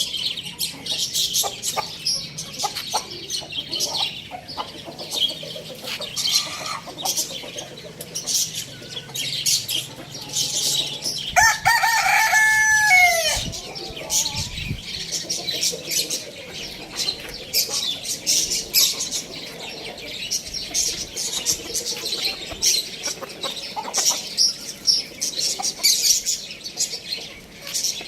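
Chickens clucking amid constant high-pitched chirping, with a rooster crowing once, for about two seconds, about halfway through; the crow falls in pitch at its end.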